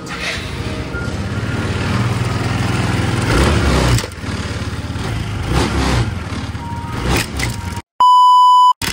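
Suzuki GR125's single-cylinder four-stroke engine running, building up toward about four seconds in, then dropping back and carrying on with a few sharp clicks. Near the end the sound cuts out and a steady electronic beep plays for almost a second.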